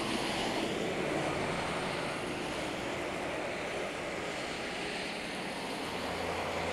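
Road traffic: cars driving along a snowy highway, a steady rush of tyre noise over a low hum.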